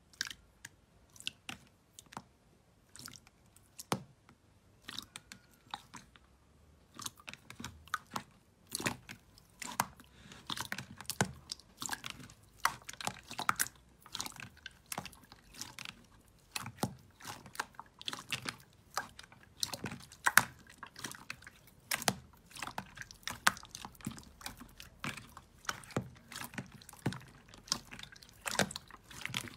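Hands pressing and poking clear slime in a plastic tub: wet, sticky clicks and pops, sparse at first and coming thick and fast from about seven seconds in.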